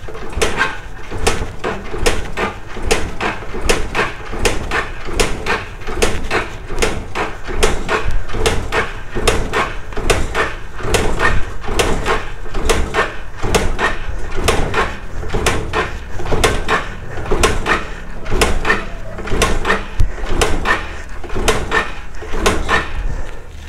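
A single-cylinder motorcycle engine cranked over without starting for a compression test, its spark plug out and a compression gauge in the plug hole. It goes in a steady rhythmic pulse, about two to three beats a second.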